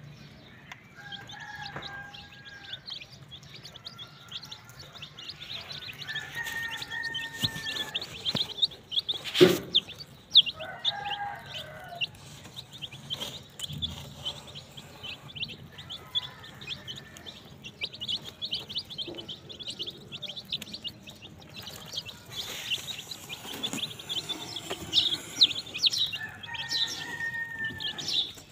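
A flock of young chicks peeping constantly: many short, high, rapid cheeps overlapping, with a few lower, longer calls now and then. A single sharp knock sounds about nine seconds in.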